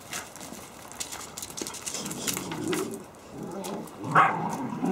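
Three-month-old Caucasian shepherd puppies playing, with growly vocal sounds and a short, loud bark about four seconds in, over scattered scuffling clicks.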